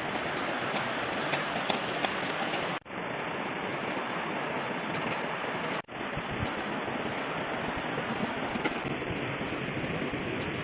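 Food sizzling and bubbling in a cast-iron wok over a wood fire, with spice paste frying and then coconut milk and cassava leaves simmering. It is a steady hiss like rain, with a few sharp ticks in the first two seconds. The hiss drops out briefly twice, about three and six seconds in.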